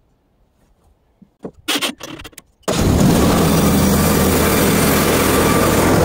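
Gas engine of a Hud-Son portable band sawmill, running at high speed with a steady hum and hiss. It comes in abruptly about three seconds in, after a few short knocks.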